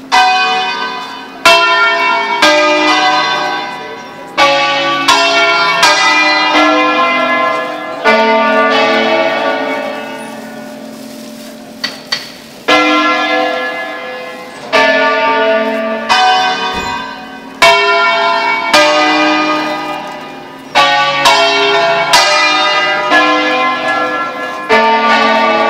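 Six-bell church peal tuned in A (bells from A2 up to F#3, cast by Bizzozero between 1823 and 1875) playing a preset 'concerto solenne'. The bells are struck one note at a time in irregular melodic groups, each stroke ringing on and fading, with a lull of a few seconds near the middle.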